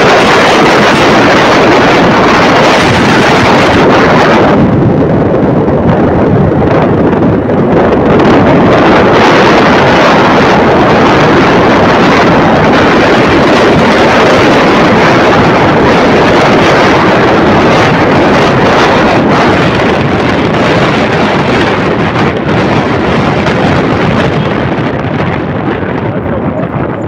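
Wind rushing loudly over the microphone of a motorcycle riding at speed, a steady rush of noise that eases a little near the end.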